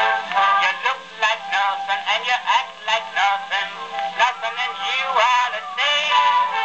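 A 1905 Edison Gold Moulded two-minute black wax cylinder playing on a Columbia Type AB Graphophone: a man singing a ragtime comedy song, heard through the machine's horn with a thin sound and no deep bass.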